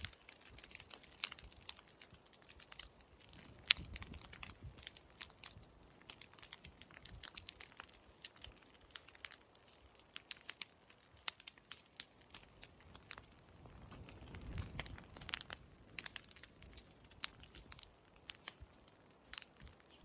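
Pile of straw and leaves burning in an open fire, crackling with many irregular sharp pops. A soft low rush swells and fades about two-thirds of the way through.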